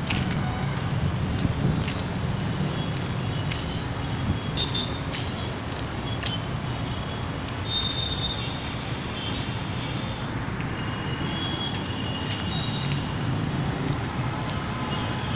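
Road traffic at a busy junction: a steady rumble of car, scooter and motorbike engines, with several short high-pitched tones and faint ticks over it.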